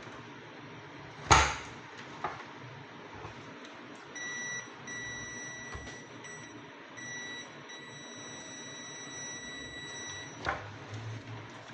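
Sharp knock about a second in, then an electronic beep: one steady high tone lasting about six seconds that drops out briefly several times before stopping.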